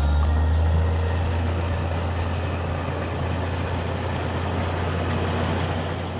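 A truck-like engine running steadily, with a deep low hum under a noisy rasp, beginning to fade near the end.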